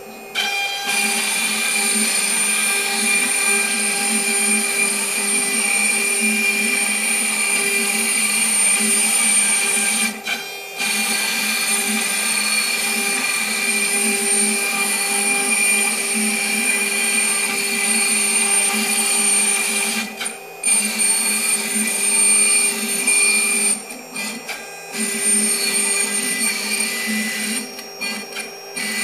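0.8 kW Chinese spindle on a Shapeoko 3 CNC router running at 24,000 rpm, its end mill cutting a shape into a board: a steady high whine over cutting noise. It gets louder about half a second in and drops away briefly a few times.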